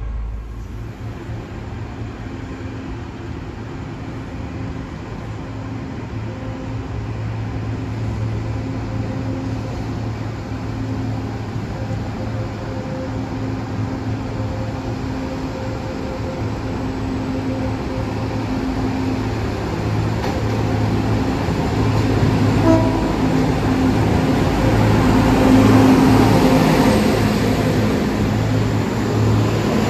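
Diesel engine of a rail track maintenance machine running with a steady hum, growing louder as the machine rolls in along the platform.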